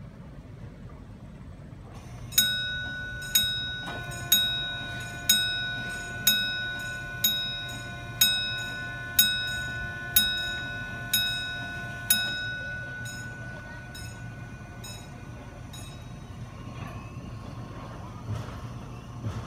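Road-crossing warning bell striking about once a second, about eleven loud strokes, then a few fainter ones, while the crossing's barrier arms come down. A low steady hum runs underneath.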